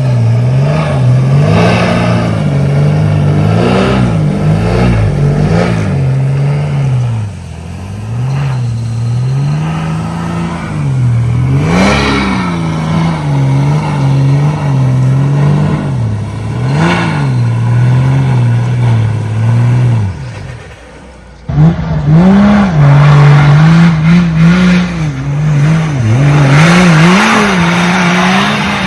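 Off-road vehicle engine revving hard over and over, its pitch rising and falling as the throttle is worked. It drops away briefly about twenty seconds in, then comes back at full throttle.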